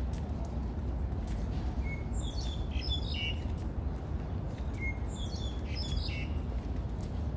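Small birds chirping in two short clusters of high calls, about two seconds in and again about five seconds in, over a steady low background rumble.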